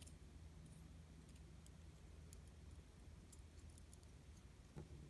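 Near silence with a few faint, scattered ticks of small parts: pin springs being set into the pin chambers of an American Lock 1100 core.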